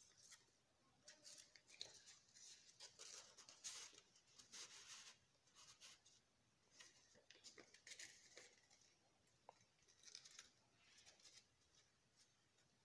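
Faint rustling and crinkling of a folded paper airplane being handled and refolded, coming on and off irregularly.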